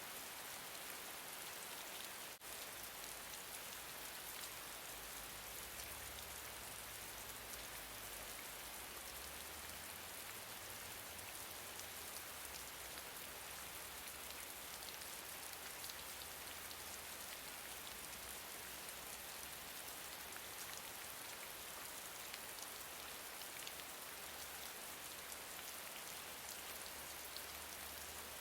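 Gentle steady rain falling, a continuous hiss dotted with the fine patter of individual raindrops, with a brief dip in loudness about two and a half seconds in.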